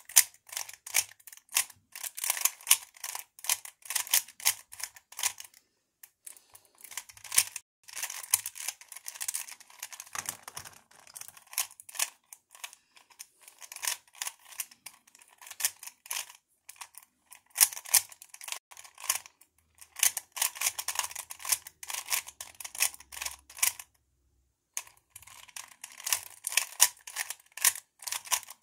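A plastic 3x3 Rubik's cube being turned fast by hand in a timed solve. Its layers click and clack in rapid runs of turns, with brief pauses between runs.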